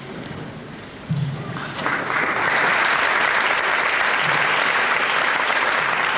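Audience applauding, the clapping swelling to full strength about two seconds in and holding steady.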